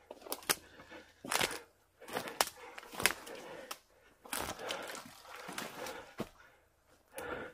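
Footsteps crunching through dry fallen leaves and underbrush at an irregular walking pace, with a few sharp twig snaps and branches brushing past.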